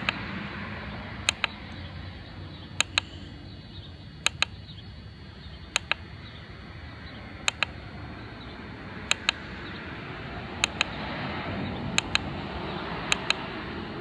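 Buttons of a Zeppin handheld lap timer being pressed and released, a double click about every one and a half seconds, around nine times, scrolling through stored lap times. Behind the clicks a rushing background noise fades and then swells again in the second half.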